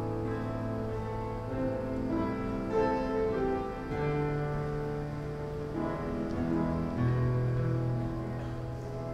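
Slow instrumental accompaniment on a keyboard: sustained chords over long held bass notes. The bass moves to a new note about four seconds in and again near seven seconds.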